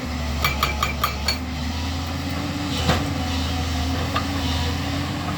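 Diesel engine of a JCB 215 excavator running steadily, with a brief rapid run of sharp metallic blows from its hydraulic rock breaker about half a second in, then a single loud knock near the middle.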